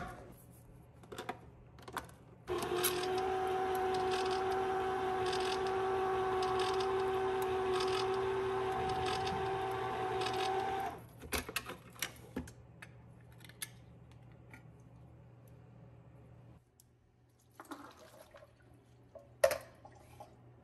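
A small motor hums steadily at one pitch, starting a couple of seconds in and cutting off sharply about eight seconds later, with light clicks and knocks of kitchen handling before and after.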